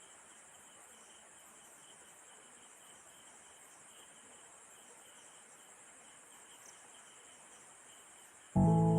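Faint, steady insect chorus with an even high-pitched pulsing chirp. Music with held, pitched notes comes in suddenly near the end.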